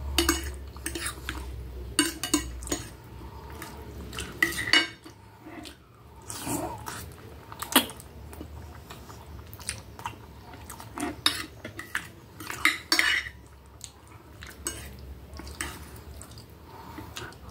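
Metal fork and knife clinking and scraping irregularly on a plate while spaghetti is twirled and eaten, with eating sounds in between.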